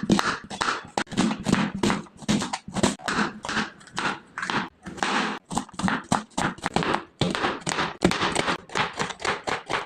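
Rapid, repeated knocks and scrapes of cooking utensils, about three or four strokes a second and fairly even.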